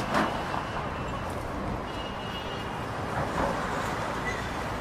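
City street ambience: a steady rumble of traffic, with no clear single event standing out.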